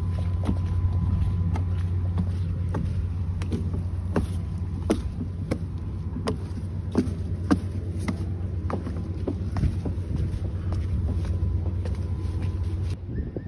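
A steady low engine hum, crossed by sharp clicks every half second or so, that cuts off suddenly near the end.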